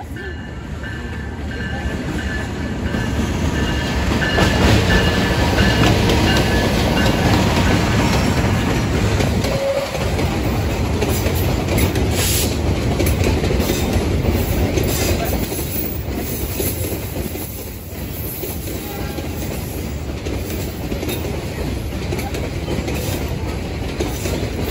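Freight train of fuel tank wagons passing close by: a steady rumble with wheels clattering over the rail joints, loudest in the first half.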